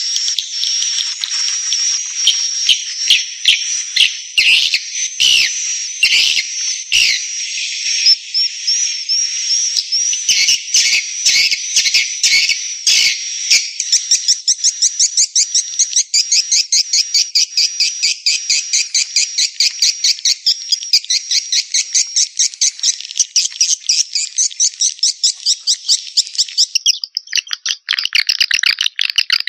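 Swiftlet call track: rapid, high-pitched chirping twitter of swiftlets, played as a lure to draw the birds into a nesting house. It starts as a dense, uneven chatter and about halfway settles into an even run of about five or six chirps a second. Near the end it changes to a lower, denser twitter.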